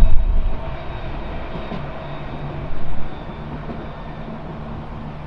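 Electric tram on the Nottingham Express Transit line running past with a steady hum, a loud low rumble at first.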